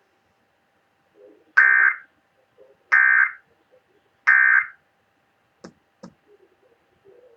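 NOAA Weather Radio's SAME digital data tones: three short, raspy, buzzing warbles of equal length, each about half a second, a little over a second apart. This is the Emergency Alert System end-of-message code sent once the test watch message is over. Two faint clicks follow.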